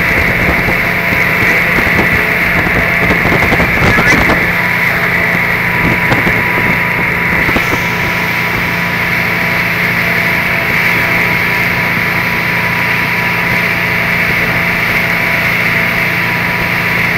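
Motorboat engine running steadily at towing speed, under a constant rush of wind and wake water. A few knocks about four seconds in.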